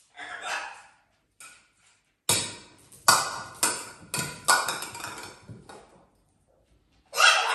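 A quick run of sharp knocks and clatters on a hard floor, about seven in three and a half seconds, as pets play. A breathy puff comes near the start and another near the end.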